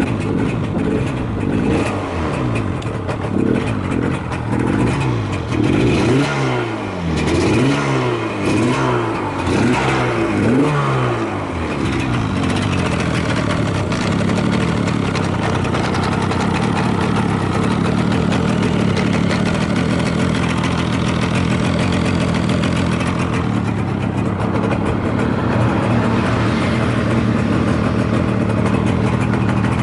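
Yamaha RZ250R two-stroke parallel-twin engine being blipped, revving up and falling back several times in quick succession, then settling to a steady idle about twelve seconds in. It revs up cleanly with no abnormal noise, as the seller describes it.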